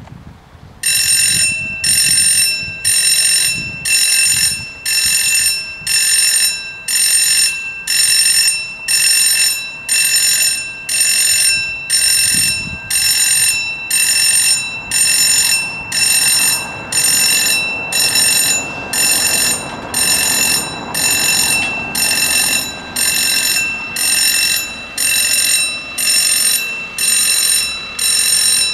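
Electric warning bells of a WSSB level crossing ringing in regular bursts, about one a second, starting about a second in: the crossing is closing for an approaching train, and the barriers come down while they ring.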